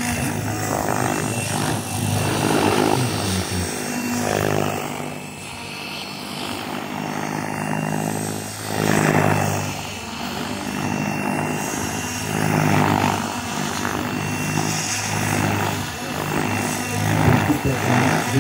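Radio-controlled model helicopter flying, its rotor and drivetrain running steadily, with the sound swelling louder about halfway through and again near the end.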